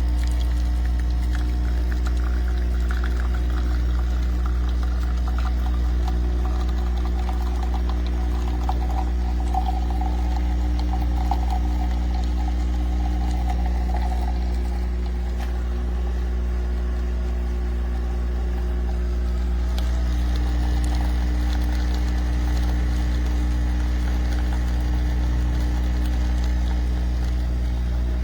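Nespresso CitiZ espresso machine's pump humming steadily as it brews a coffee capsule into the mug, with a milk frother running alongside.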